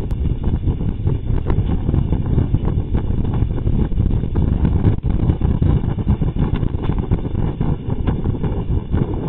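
Heavy wind rumble buffeting the microphone over the running engine of a powered parachute in flight, a steady low, fluttering noise.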